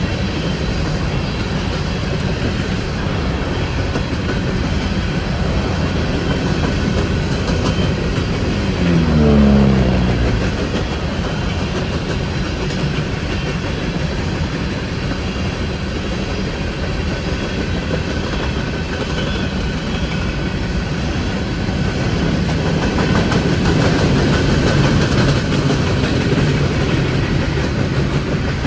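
CSX coal train rolling past: a steady rumble and clatter of freight cars on the rails. About nine seconds in there is a short falling tone, the loudest moment.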